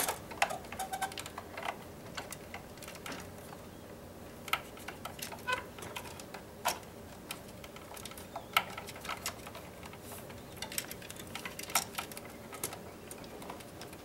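Light, irregular clicks and taps of stiff electrical wires and a GFCI receptacle being handled and fed into a blue plastic wall box.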